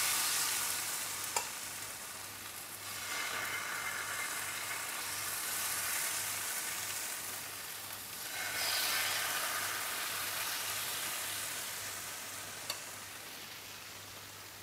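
Thin ragi dosa batter sizzling on a hot tawa. The hiss swells twice as more batter is ladled on, then slowly dies down as the dosa sets.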